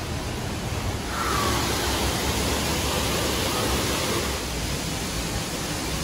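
Steady rushing roar of Düden Waterfall's falling water heard from the cave behind the falls, growing louder about a second in.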